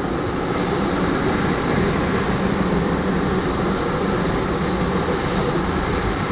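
Tank cars of a crude oil train rolling past over a grade crossing: a steady rumble of steel wheels on the rails.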